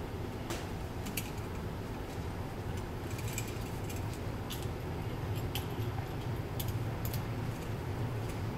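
Irregular small clicks and light rustling as stiff insulated wires are handled and their stripped ends pushed into push-in wire connectors, over a steady low hum.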